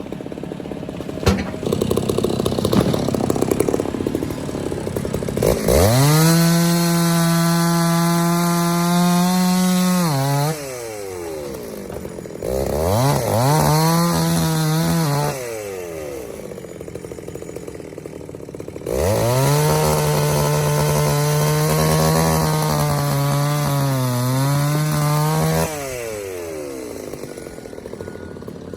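Chainsaw run at full throttle three times, cutting through a tree, each time rising quickly to a high steady whine and dropping back when the throttle is released. The pitch sags briefly under load near the end of the last and longest run, and a rougher, lower engine sound fills the gaps between runs.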